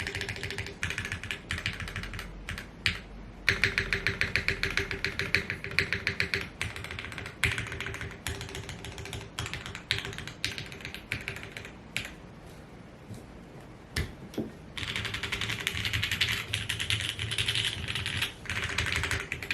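Typing on a Frog TKL mechanical keyboard with lubed Gateron Oil King linear switches in an aluminium plate under GMK keycaps: fast runs of keystrokes. About twelve seconds in the typing thins to a few scattered keypresses for two or three seconds, then picks up quickly again.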